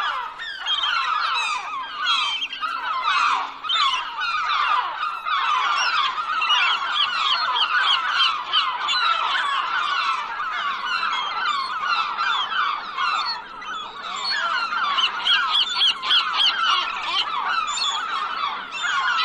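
A flock of gulls calling all at once: many overlapping short, harsh cries, one over another with no pause.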